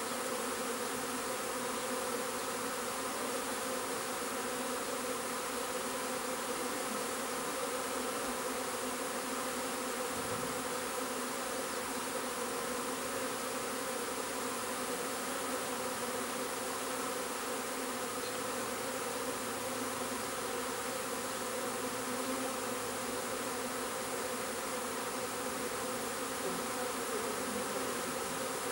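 Honeybee swarm buzzing steadily, a dense hum of many bees flying around and crawling over a swarm trap as the swarm moves in.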